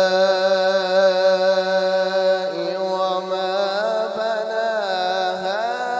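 Male qari's Quran recitation in melodic tajweed style, drawing out one long note on "as-samā'". The pitch holds steady for about two and a half seconds, then steps slightly and wavers through ornamented turns, rising a little near the end.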